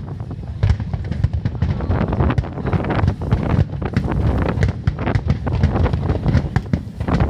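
Aerial fireworks going off in a rapid string of sharp pops and bangs, several a second, with wind rumbling on the microphone.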